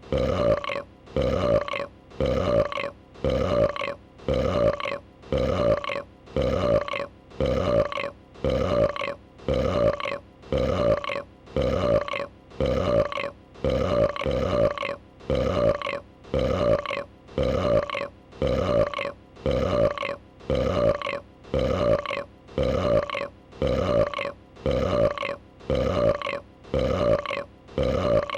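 A female dragon's burp sound effect looped over and over, about once a second, each repeat identical.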